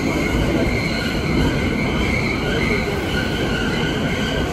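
New York subway F train running, heard from inside the car: a steady heavy rumble of the wheels on the track, with faint high squealing tones from the wheels that swell and fade.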